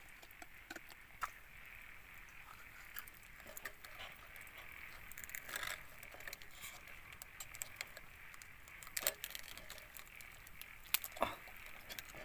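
Oysters in the shell grilling over an open wood fire: a steady sizzle with scattered sharp crackles and pops, two louder pops near the end.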